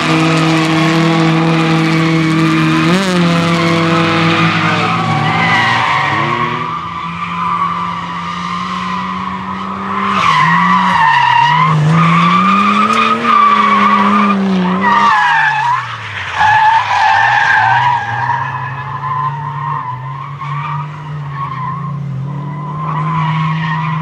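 Toyota Supra MK3 Turbo's straight-six engine revving in a drift while its tyres squeal. The engine pitch holds steady at first, then falls and rises several times around the middle as the throttle is worked, with the squeal wavering throughout.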